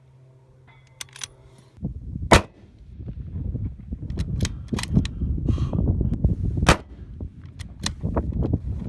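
Two bolt-action precision rifle shots about four seconds apart, each a sharp crack, with smaller clicks and knocks between them over a rough low rumble.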